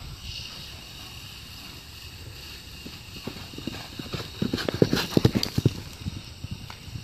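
A horse's hooves striking packed dirt as it trots up close: a quick run of hoofbeats, loudest a little past the middle.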